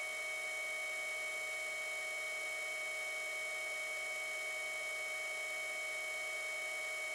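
Steady, high-pitched electrical whine over a lower steady tone and faint hiss, holding an even level throughout.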